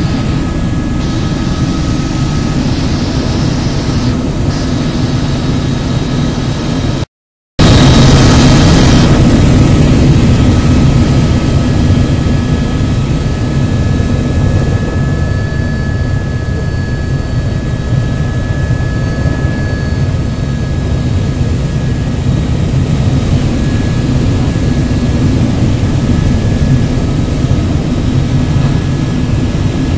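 Helicopter in flight: the steady drone of its engine and rotor, with a thin high whine over it. The sound cuts out completely for about half a second around seven seconds in, then returns a little louder.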